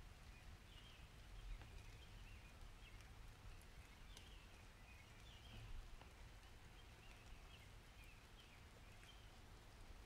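Very faint summer rain ambience: scattered drips over a low, steady rumble, with soft chirping repeated throughout.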